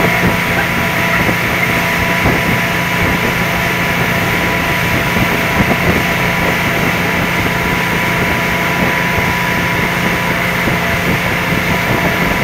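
Motorboat engine running steadily at towing speed, a constant hum under the rush of water and wind.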